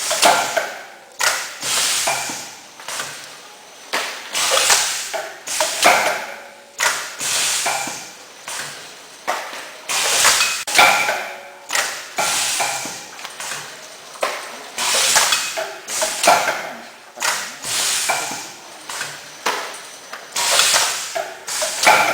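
Automatic tofu packaging machine running through its cycle: a repeating pattern of knocks and clanks with hissing, about once a second.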